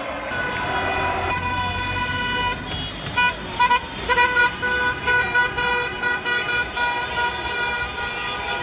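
Car horns honking in street celebration. A held horn tone sounds throughout, and from about three seconds in there is a run of short, repeated toots, with passing traffic underneath.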